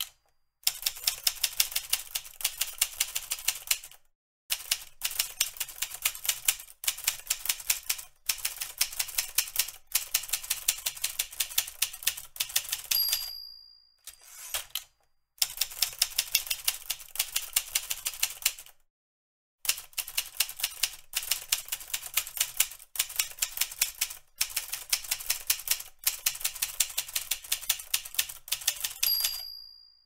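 Typewriter keys clacking in fast runs of strikes, broken by short pauses. The typewriter's end-of-line bell dings twice, about halfway through and near the end.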